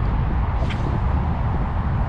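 Wind buffeting the microphone: a steady low rumble that fluctuates without a pattern.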